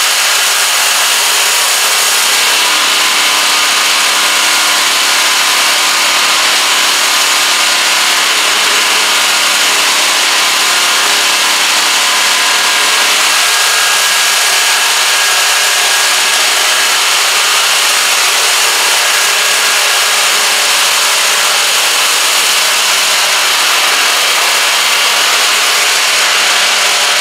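Pressure-washer-fed 24-inch stainless steel surface cleaner running on concrete: a loud, steady hiss of high-pressure water jets from its spinning arm spraying the floor. A faint steady low hum runs under it for about the first half.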